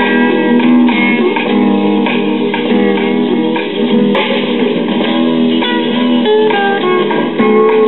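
A 1966 talking book record player plays a 33 rpm music LP through its own tube amplifier and speaker, freshly fitted with new capacitors and resistors: steady guitar-led music with shifting notes.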